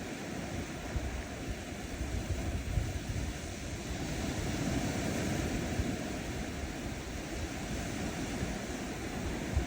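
Ocean surf washing onto a sandy shore: a continuous wash of small waves that swells about halfway through and then eases. Low gusts of wind rumble on the microphone.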